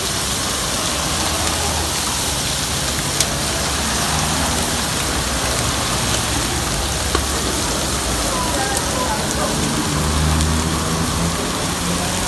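Steady hiss of whole stuffed squid (sotong buncit) sizzling on a hot flat-top griddle, with two or three sharp clicks from the metal tongs.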